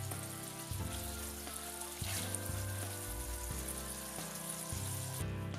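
Instrumental background music over diced bacon sizzling in melted butter in a steel pot; the sizzle thins out near the end.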